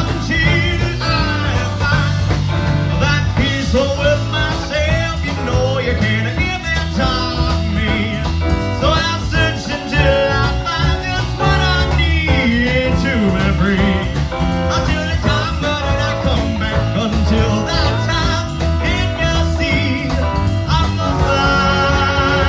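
Prog-rock band playing, from a 1975 reel-to-reel recording: electric guitars, bass and drums under a wavering lead melody line, at a steady level.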